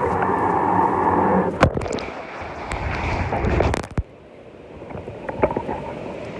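Ocean waves crashing in a loud rush with sharp cracks and pops; the rush drops away suddenly about four seconds in, leaving a quieter wash with small crackles.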